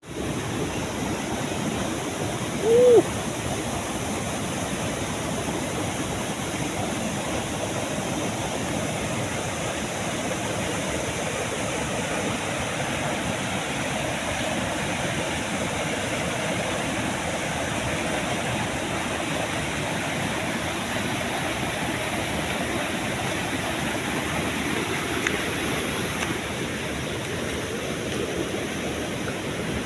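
Steady rush of flowing stream water. About three seconds in there is a brief, louder tone that rises and falls.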